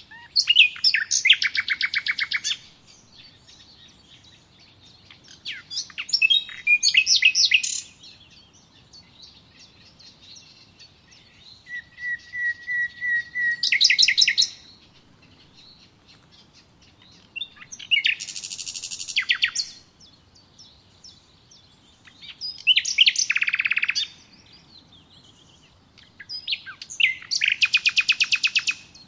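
A songbird singing six separate fast trilled phrases, each about two seconds long, with pauses of two to three seconds between them.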